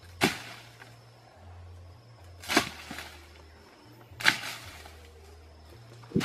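Four sharp strikes, about two seconds apart, each dying away quickly.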